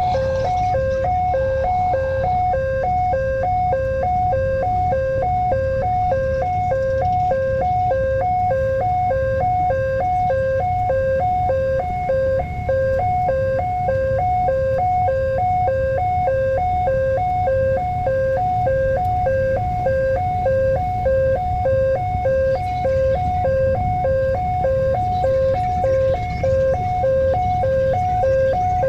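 Railway level-crossing warning alarm sounding steadily, an electronic chime switching back and forth between a high and a low tone over a low background rumble. The alarm warns that a train is approaching the crossing.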